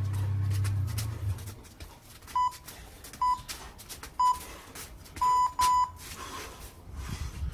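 Electronic workout-timer beeps at one steady pitch: three short beeps about a second apart, then two longer ones close together. This is the timer's round signal.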